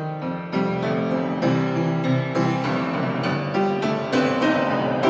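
Solo blues piano playing an instrumental fill between sung lines, with a new chord or note struck roughly every half second.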